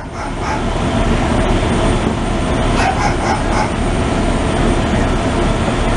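Emergency vehicles' engines running in the street, a steady loud rumble, with a few short higher sounds around the middle.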